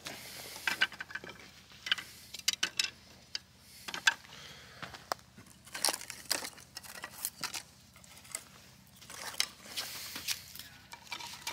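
Thin dry kindling sticks clicking and knocking together in irregular sharp taps as they are laid crosswise into a log-cabin fire stack, with some fabric rustling.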